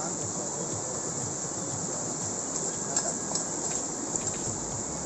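Steady rush of a fast-flowing rocky mountain stream, with a few faint clicks scattered through it.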